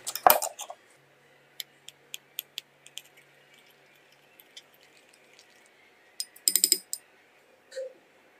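A wire whisk beating egg yolks in a glass bowl, its wires clicking against the glass in scattered light taps, with a quick run of clinks about two-thirds of the way through.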